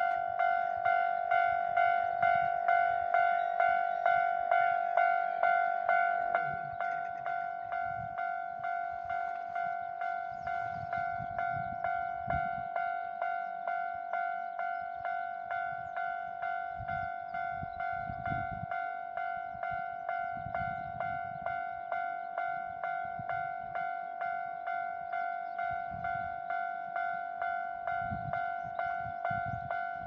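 Japanese railroad crossing warning bell ringing its steady "kan-kan" at about two strikes a second, signalling that a train is coming and the crossing is closed. The bell drops in volume about six seconds in.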